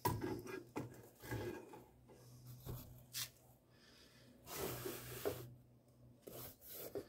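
Handling noise of a replica championship belt: its strap and metal plates rubbing and lightly knocking against a wooden 2x4 as it is lifted off and laid down, in irregular short scrapes with a longer rub about halfway through.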